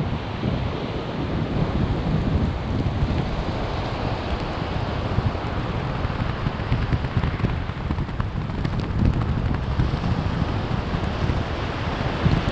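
Sea surf washing on the shore, with heavy wind buffeting on the microphone as a gusty low rumble.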